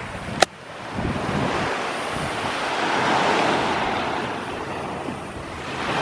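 Small waves washing onto a sandy shore: a steady rush of surf that swells and eases. A single sharp click comes about half a second in.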